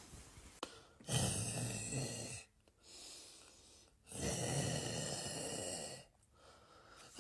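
A person snoring: two long snores about three seconds apart, with a softer breath between them.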